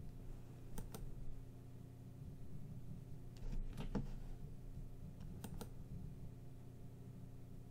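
Computer mouse button clicks: a pair about a second in, a cluster around four seconds and another pair about five and a half seconds in, over a low steady hum.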